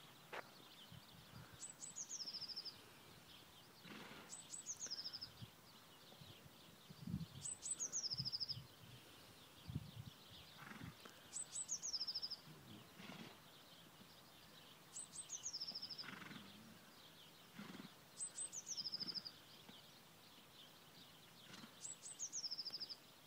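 A small songbird sings the same short song over and over, about every three to four seconds. Each song is a few high notes dropping into a quick falling trill. Faint low rustling lies beneath it.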